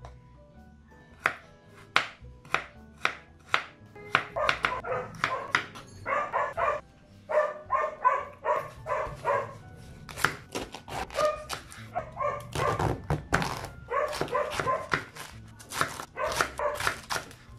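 Kitchen knife chopping through carrot and then cabbage onto a wooden cutting board, a sharp knock with each stroke about twice a second at first. From about four seconds in a dog barks in repeated bursts of short yips, louder than the chopping, over faint background music.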